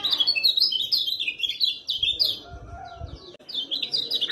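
Kecial kuning (a yellow white-eye) singing a fast, chattering run of short, high, downward-sliding chirps, briefly pausing about three seconds in before carrying on. This is a lure song meant to set silent caged white-eyes singing.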